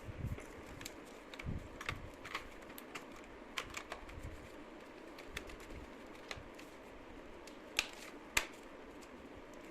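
Scattered light clicks and taps of small plastic parts being handled, as when a washing machine's control board and its connectors are worked on, with two sharper clicks near the end.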